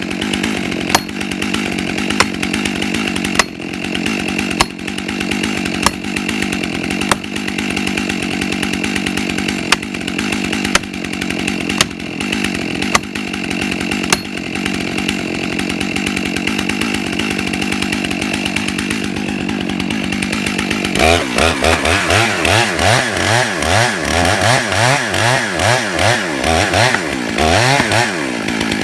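Chainsaw engine running steadily, with sharp ticks about once a second. About three-quarters of the way through it is revved up and down repeatedly until near the end.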